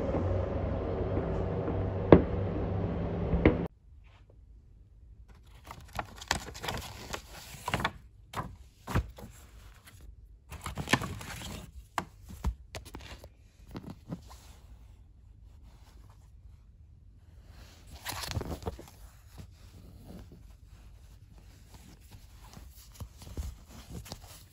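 Fireworks cracking over a loud, steady outdoor din, cut off abruptly about three and a half seconds in. After that, quiet rustling, scraping and tapping of a cardboard box and plastic-wrapped pillowcases being handled.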